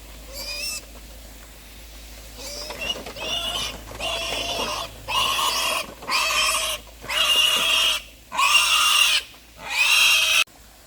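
Piglets squealing: one short squeal, then a run of about seven loud, high squeals in quick succession that stops abruptly near the end.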